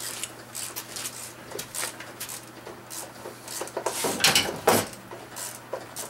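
Hand-work on car parts: a run of short clicks, scrapes and rubbing, with two louder knocks about four seconds in and just before five seconds.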